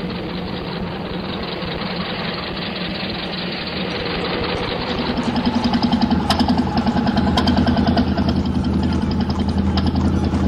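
Old-time street ambience laid over archival footage: a steady rumble of rolling traffic, joined about halfway by an early motor car's engine idling with a fast, even chug, and a few sharp clicks.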